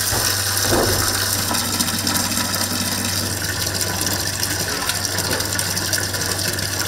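An electric kitchen machine's motor running with a steady low hum, with mechanical rattling and clatter over it.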